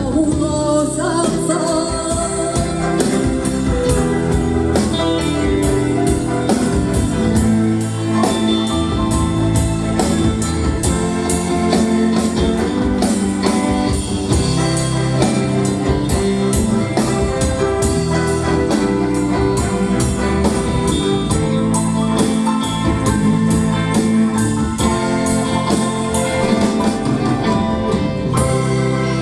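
A live rock band playing an instrumental passage: drums keep a steady beat under bass, guitar and keyboards.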